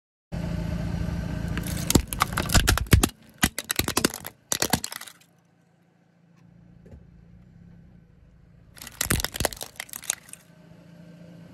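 Hard plastic toy dog figure cracking and snapping under a car tyre, in two bursts of sharp cracks: one starting about two seconds in and a shorter one near the end. A car engine hum runs under the first burst.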